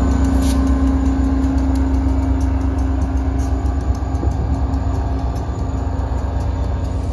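CDOT GP40-3H diesel locomotive's engine running as it pulls a Shore Line East train away, with a strong low hum and the coaches rolling past. A steady engine tone fades about halfway through as the locomotive draws off.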